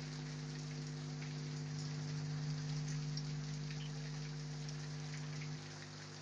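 Heavy rain falling, a steady hiss with scattered drop ticks. Under it runs a steady low hum, which drops a little near the end.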